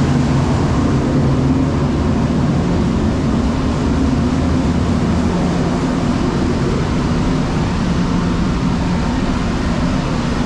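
Grain dryer running: a loud, steady mechanical drone with a low hum.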